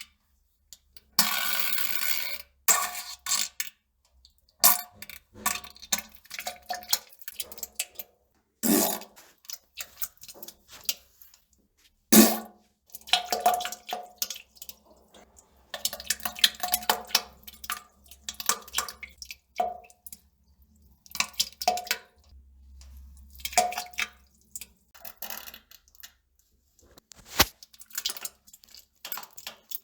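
Farts and plops of a bowel movement on a toilet: a long string of short, irregular bursts with pauses between, some with a brief buzzing tone.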